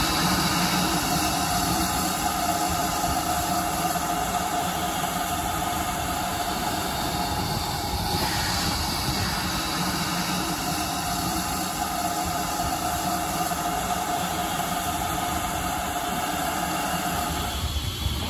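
GWR 5101 class 2-6-2 tank locomotive No. 4144 standing in steam, with a steady hiss of escaping steam.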